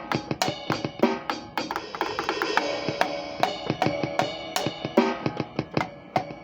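Drum kit played loosely, with snare, bass drum and tom strikes in an irregular beat. About two seconds in comes a quick run of strokes with a cymbal washing over it.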